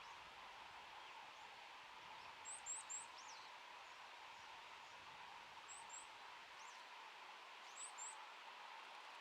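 Faint, thin high chirps from a small bird in quick groups of two or three, a few seconds apart, over a steady faint background hiss.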